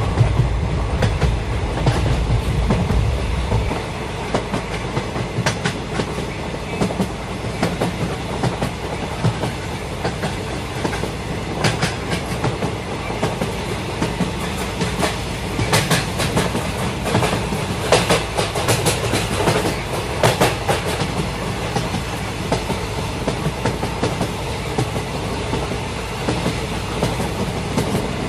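Sri Lanka Railways S14 diesel multiple unit running through a tunnel, heard from an open carriage door. A steady rumble of wheels on rail is overlaid by clickety-clack over rail joints. The deep rumble drops off about four seconds in, and the clacks come thickest in the middle stretch.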